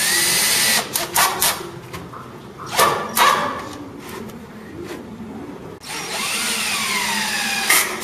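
Handheld power drill running in two bursts, a short one at the start and a longer one about six seconds in whose whine slides down in pitch, with a few knocks and short whirs between them.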